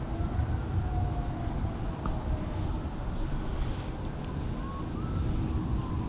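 Steady low rumble of distant traffic, with a faint siren wailing, its pitch slowly rising and falling.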